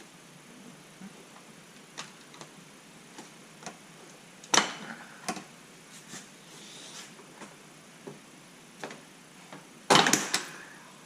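Plastic Christmas-tree fasteners being pried out of the truck's plastic shroud with a pry bar: scattered light clicks and taps, with two loud sharp snaps, one about four and a half seconds in and a bigger cluster about ten seconds in.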